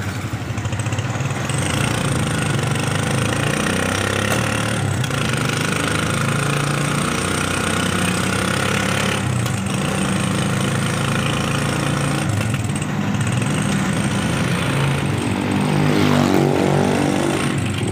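Motorcycle engine of a Philippine tricycle (motorcycle with sidecar) running steadily under way, heard from inside the sidecar. Near the end the engine pitch rises and it gets louder for a moment before settling again.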